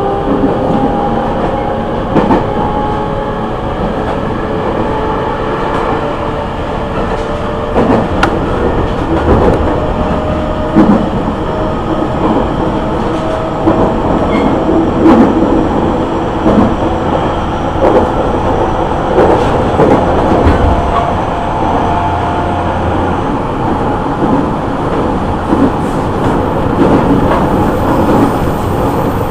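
Running sound inside a JR East E501 series electric train at the end of a motor car: the Siemens VVVF inverter and traction motors whine in steady tones that climb slowly in pitch early on as the train gathers speed. Wheels click over rail joints at irregular intervals.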